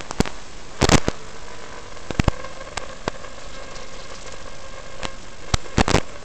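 Steady radio hiss with sharp crackles and pops about a second in, around two seconds in and near the end: static on an analog FPV video link as the signal breaks up.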